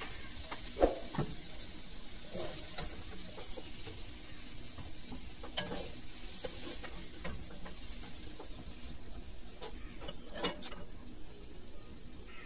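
Steel spatula stirring and scraping green banana and potato pieces around a kadai as they fry nearly dry, with a faint steady sizzle underneath. Occasional sharper scrapes and knocks of the spatula against the pan, a pair of them near the end.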